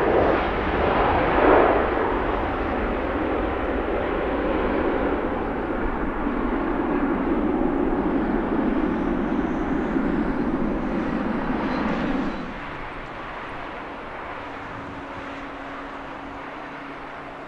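Jet airliner engines running loud, a rushing noise that peaks about a second and a half in and holds, then drops off abruptly about twelve seconds in to a fainter hum.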